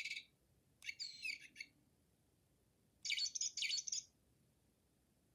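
A bird chirping in short bursts of high tweets: one right at the start, one about a second in, and a longer run of rapid chirps around three seconds in.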